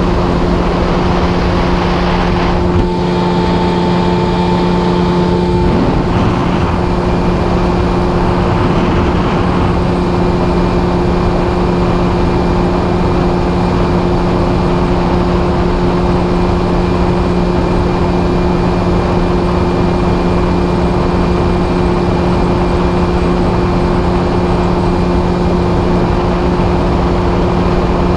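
Mercury 30 hp two-stroke outboard motor running steadily under way, with a constant drone over the rush of wind and water. A brief higher tone joins in for a couple of seconds near the start.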